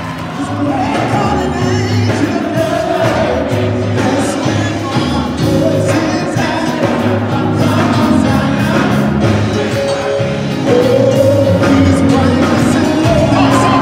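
Music with singing voices over a repeating bass line, in a gospel style; it gets a little louder about three quarters of the way through.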